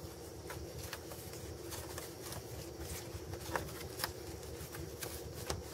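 Hands handling a taped-on throttle-body wiring connector, stripping electrical tape off it: scattered small crinkles and clicks, with a few sharper clicks past the middle.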